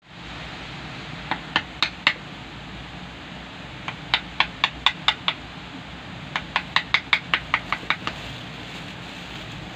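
Wood-carving chisel struck repeatedly to cut into a block of wood: sharp knocks in three runs, the last and longest near the end at about six strikes a second.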